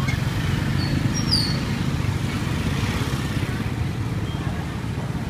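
Steady low rumble of street traffic, with a couple of brief high chirps about a second in.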